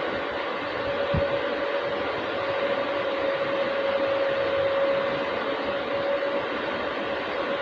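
A steady hiss with a faint steady hum tone running through it, and one brief low thump about a second in.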